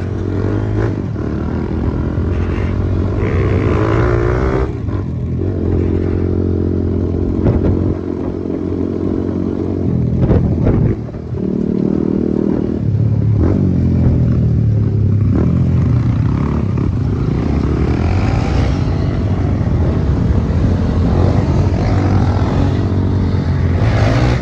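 Small motorcycle engines running under way, heard from a moving bike, their note rising and falling with throttle and gear changes. There is a brief drop in level about eleven seconds in.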